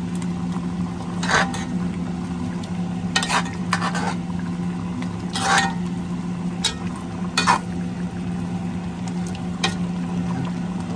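A metal ladle stirring chicken curry in a stainless steel pot, clinking sharply against the pot about eight times, over the bubbling coconut-milk sauce and a steady low hum.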